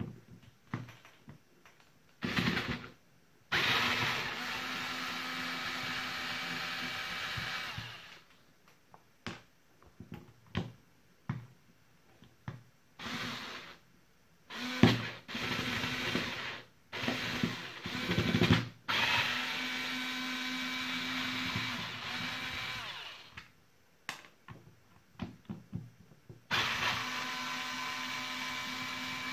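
Cordless electric screwdriver backing screws out of a cordless drill's plastic housing. The motor runs in several spells of a few seconds each, with a steady whine that winds down at the end of some runs, and short bursts between them. Light clicks and taps from handling fall in the gaps.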